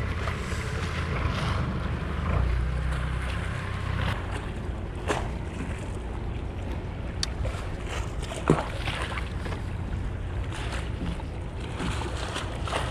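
Harbour ambience on the water: wind on the microphone and water moving around the boat, over a steady low motor hum that swells for a couple of seconds early on. A few sharp clicks stand out, the loudest about eight and a half seconds in.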